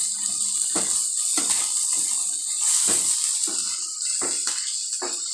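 Goat brain and onions sizzling in a nonstick frying pan, with a wooden spatula scraping and knocking against the pan about twice a second as the masala-coated mixture is stirred.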